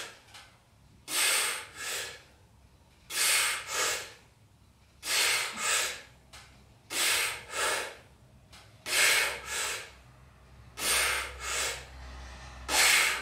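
A man breathing forcefully in time with seated cable-row reps: a pair of sharp breaths about every two seconds, over and over.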